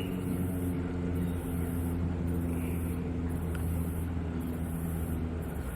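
A steady low engine hum that fades out near the end.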